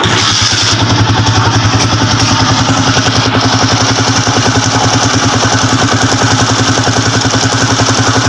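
Honda TMX155 single-cylinder four-stroke engine starting up, then idling steadily with an even pulsing beat, its magneto cover removed. It carries the abnormal noise the owner complained of, which the mechanic traces to play in the crankshaft bearing.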